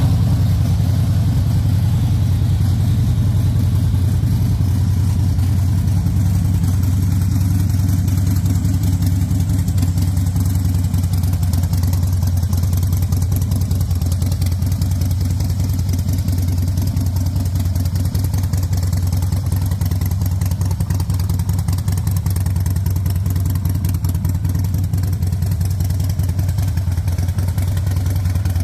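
Custom Harley-Davidson motorcycle's V-twin engine idling steadily.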